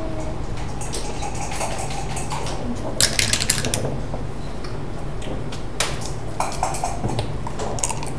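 Backgammon dice thrown onto the board, a quick rattle of clicks as they bounce and settle about three seconds in, followed by a few separate clicks of checkers being set down on the board, over a steady low background hum.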